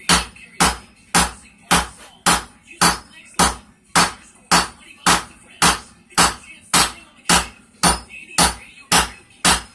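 Blacksmith's hand hammer striking a hot railroad spike on an anvil, forging it out into a knife blade with steady, even blows just under two a second, each with a short metallic ring.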